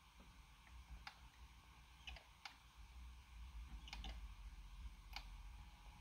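Near silence with a steady low hum and about half a dozen faint, irregular clicks: small handling noises as a wooden lure body is held and positioned at a drilling rig.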